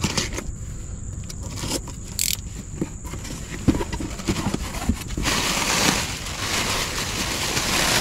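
A cardboard box being opened, with a few light knocks and scrapes of cardboard. From about five seconds in comes a steady crinkling rustle of plastic air-pillow packing being pulled out of the box.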